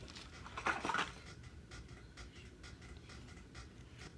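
Faint rustling of a small tackle package being handled, a short burst about a second in, then light scattered clicks and taps.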